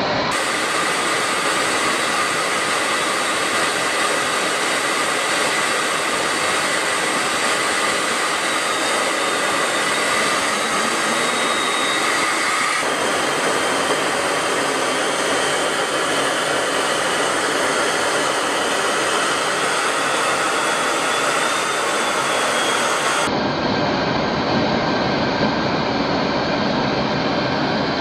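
Steady roar of jet aircraft engine and airflow noise, with a faint high whine in it. The sound shifts abruptly twice, a little under halfway and again near the end, where the footage cuts.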